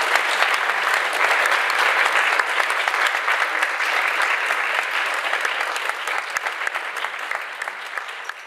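Audience applauding: dense clapping that slowly thins and fades over the last few seconds.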